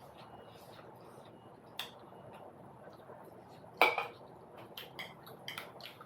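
Cutlery clinking against a dish or bowl: a few sharp clicks, the loudest about four seconds in, then a quick run of lighter ones.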